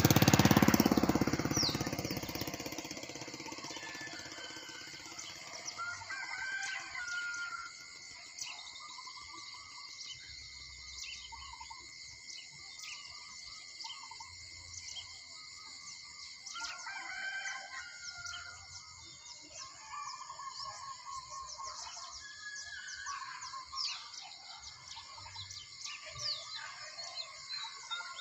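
Roosters crowing at intervals, several times, over a steady high hiss and a few short bird chirps. A loud low rumble fades out over the first two seconds.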